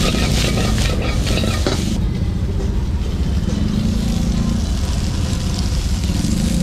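Vegetables stir-frying in a wok: a metal ladle scrapes and tosses the food against the wok with sizzling for about the first two seconds, then the frying settles to a steadier sizzle. A steady low rumble runs underneath.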